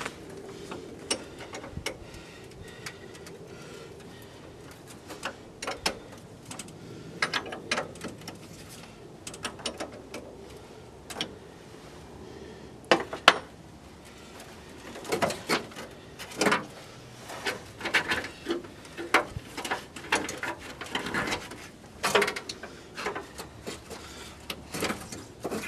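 Irregular clicks, knocks and light metal rattles of hands working in a truck's engine bay at the battery and charger, with no engine running or cranking. The clicks come more often and more loudly in the second half.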